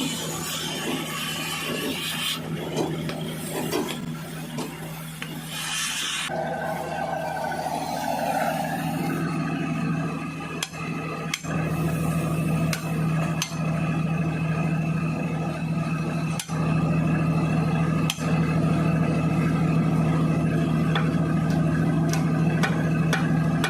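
Rough metal rasping and scraping for about six seconds, then a steady machine drone with a low hum and a few sharp clicks.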